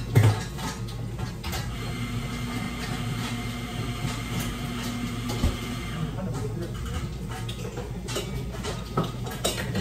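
Cafe counter work: clinks and knocks of cups, dishes and utensils being handled, with a steady machine hum through the middle few seconds.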